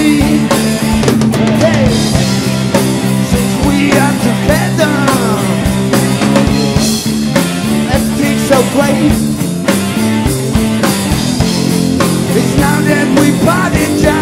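Live rock band playing, with electric guitars, bass guitar and drum kit.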